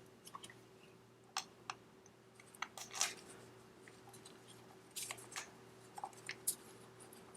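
Faint scattered clicks and light taps of hands handling the oil filter cover and its bolts on an ATV engine, with a faint steady hum behind.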